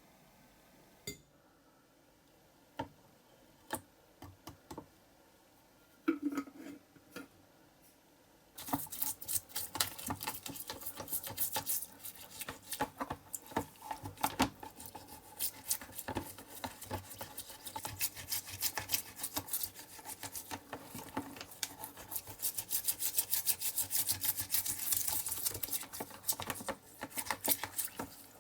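Scattered light clicks and taps of small parts being handled, then from about nine seconds in a rapid, continuous scratching and scrubbing against a small hard object.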